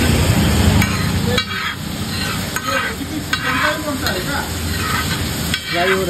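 Chicken pieces in masala gravy sizzling and frying in a large flat iron pan, stirred with a metal ladle that scrapes and clicks against the pan every second or so. A heavier low rumble under the sizzle drops away about a second and a half in.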